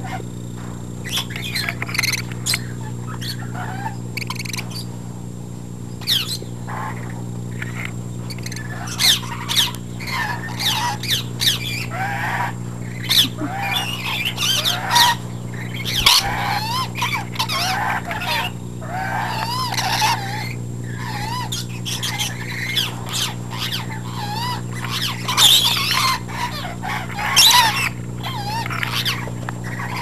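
Pet parrots chirping, whistling and squawking in many short warbling calls, busier from about a third of the way in, over a steady low hum. A single sharp knock about halfway.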